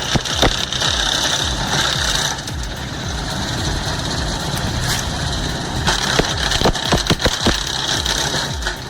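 Engine-driven wood chipper running steadily, with scattered sharp clicks and knocks.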